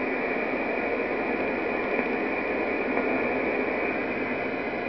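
Steady hiss of 20-metre band noise from a G3020 software-defined receiver in SSB mode, heard between transmissions. The hiss is held to the voice range by the receiver's SSB filter.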